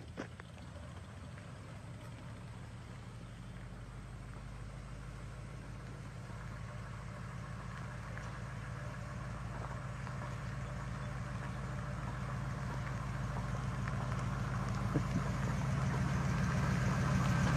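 1953 Oldsmobile 88's V8 engine running at a low, steady speed as the car rolls slowly toward the listener on its new exhaust, growing steadily louder as it approaches.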